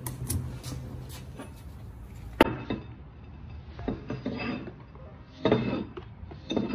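Steel bearings and differential parts clinking, scraping and knocking against a steel workbench as they are handled, in scattered short bursts.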